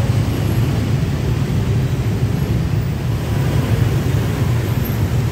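Dense motorbike and scooter traffic: many small engines running together in a steady low rumble, with no single event standing out.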